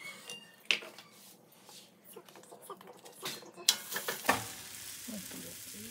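Chapati cooking on a hot tawa: light sizzling with scattered taps and scrapes as the roti is pressed down by hand. A steadier hiss sets in after about four seconds.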